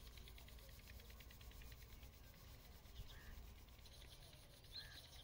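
Near silence: a faint steady hiss, with two brief faint high chirps about three seconds and nearly five seconds in.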